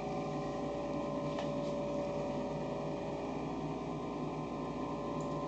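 Steady indoor hum and hiss, with a faint constant tone over it.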